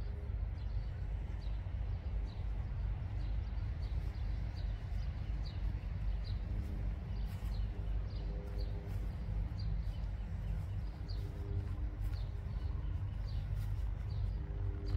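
A bird chirping over and over, a short high chirp about every half second, over a steady low outdoor rumble.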